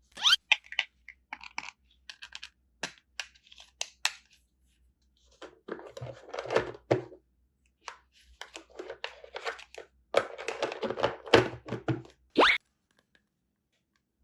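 Small objects being handled up close: scattered light taps and clicks, two stretches of rustling and crinkling, and a quick rising swish about twelve seconds in, after which the sound stops.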